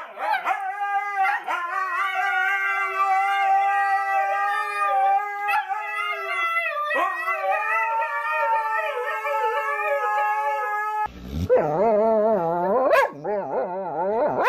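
A dog howling in long, drawn-out held notes: two long howls, the first about six seconds, then after a short break a second one about four seconds. About eleven seconds in the sound changes abruptly to a lower, quickly wavering howl.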